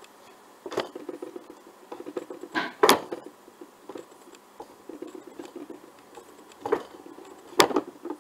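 A hand knocks hard on a wooden table about five times, the loudest about three seconds in. Between the knocks a small plastic box rattles as it wobbles back and forth on the tabletop.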